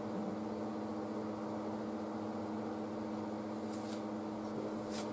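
Steady background hum on a repair bench, with a few constant tones under an even noise. A couple of faint short ticks or rustles come near the end.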